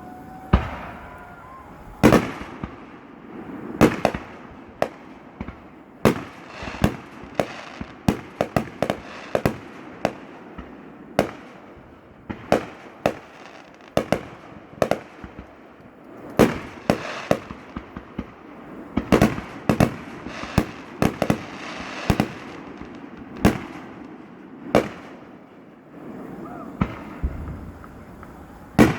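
Fireworks display: shells bursting in sharp bangs at irregular intervals, sometimes several in quick succession, dozens over the span.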